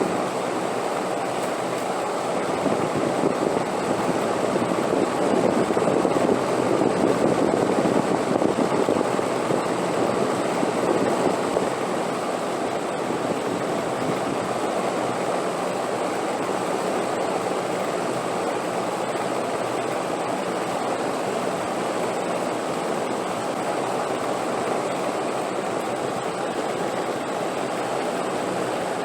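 Wind blowing steadily as a continuous rush, swelling into a stronger gust a few seconds in and easing back down about twelve seconds in.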